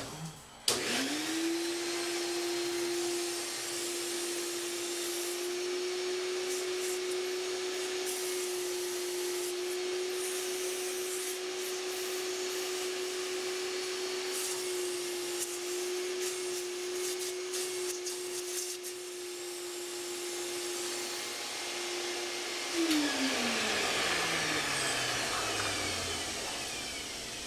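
Vacuum cleaner motor switched on about a second in, running with a steady hum as it sucks through a hose held to a small paper bellow, drawing the bellow's folds together. About 22 seconds in it is switched off and winds down, its pitch falling.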